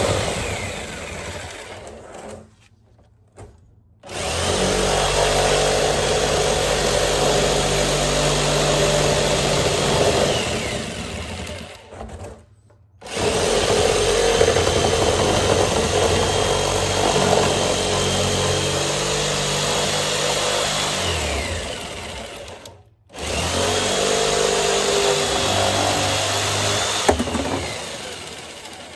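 Electric jigsaw cutting through the wall of a 55-gallon barrel in three long runs, stopping briefly about three, twelve and twenty-three seconds in, then dying away near the end.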